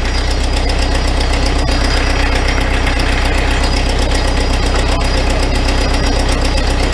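Farmall 450 diesel tractor's four-cylinder engine running steadily, with an even, rapid firing beat.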